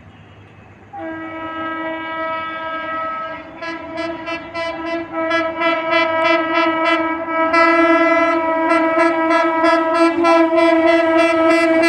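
WAP-7 electric locomotive's horn honking in one long unbroken blast as the train approaches at speed, growing steadily louder. From about four seconds in, a fast, quickening clatter of wheels over rail joints joins it.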